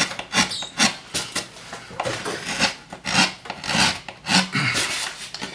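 Hand carving gouge cutting into a woodcut block: quick, repeated short scraping strokes, about two or three a second, as chips of wood are pushed out.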